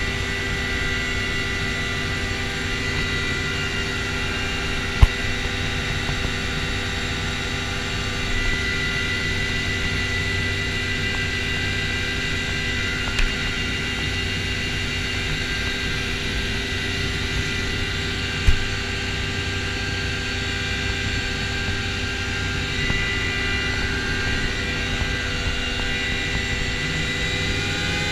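Helicopter turbine engines and rotor running at a steady pitch while the helicopter sits on the helipad, heard from inside the cabin. Three short sharp clicks sound over it, about five, thirteen and eighteen seconds in.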